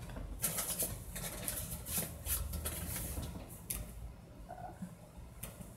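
Faint, irregular clicks of a computer mouse and keyboard, with light rustling in between.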